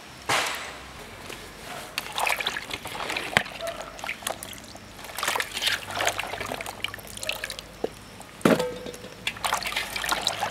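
Hands mixing cut vegetables in water in a metal pot: irregular sloshing and splashing, with a few sharper knocks of vegetable pieces against each other and the pot.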